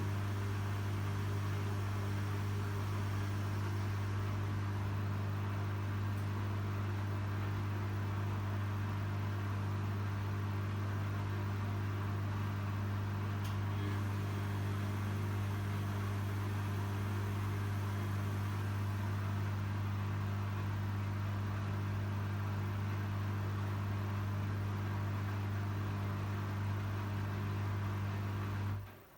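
Arçelik 3650 SJ washing machine running with a quilt inside near the end of its wash cycle: a steady low hum that cuts off abruptly just before the end.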